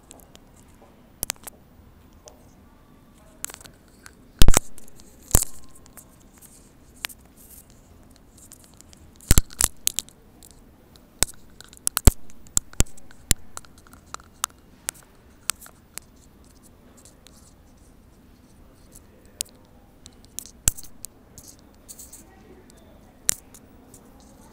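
Irregular sharp clicks and taps, the loudest about four seconds in, over a low steady background of a quiet subway platform.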